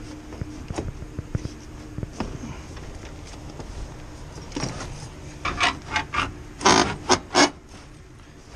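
A few light knocks, then a quick series of about eight rasping, scraping strokes, the last few loudest.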